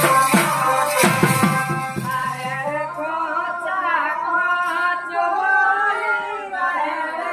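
Live Manasa Mangal folk music: drum beats and jingling percussion over a held note, which drop out about three seconds in, leaving a voice singing a winding melody.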